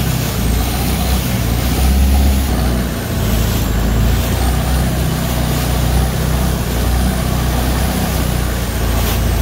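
Long-tail boat engine running steadily under way: a loud, low drone with an even rushing noise over it.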